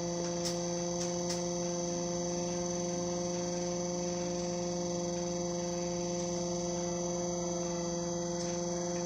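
Small motor-driven mechanical siren, a little DC motor spinning its 8-port rotor, holding one steady low note with overtones, pretty quiet. It is running on a single battery, well short of the 18 volts that would make it really loud. A few faint clicks in the first second and a half.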